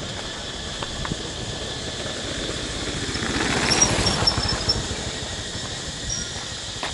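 A small motorbike passes close by. Its engine sound swells to a peak about four seconds in, with a few brief high squeaks, then fades away.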